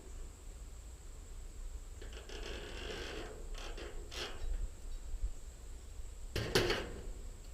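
Thin steel fascia trim being handled and worked for cutting: a scraping, rustling stretch about two seconds in, a short click, then a loud sharp knock or clatter near the end.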